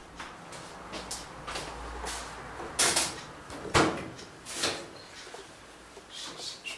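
Plastic clunks and clicks of a top-loading washing machine's lid being unlatched and lifted open, with a few sharp knocks in the middle.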